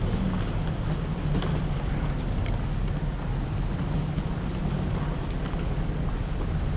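Steady low rumble of a large, empty airport terminal hall's background noise, with faint ticks of footsteps now and then.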